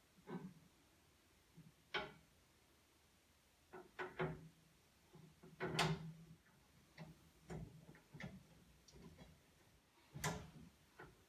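Scattered light clicks and knocks of metal parts being handled as the center bow of a convertible top frame is fitted with its rubber spacers and screws. The knocks come at irregular intervals, the loudest about six seconds and ten seconds in.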